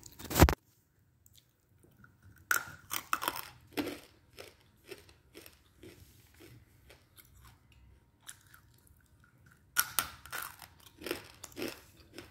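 Close-up crunching and chewing of roasted clay chunks (edible baked clay, 'mitti'): a sharp, loud crack as a piece is bitten about half a second in, then bursts of crunching around two to four seconds and again near the end, with sparser crackles between.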